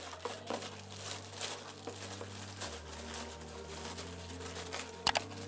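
Crinkling and rustling of packaging being handled and opened, with a couple of sharp clicks near the end.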